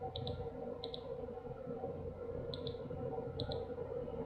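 Computer mouse button clicking four times, each click a quick double snap of press and release, over a steady low background hum.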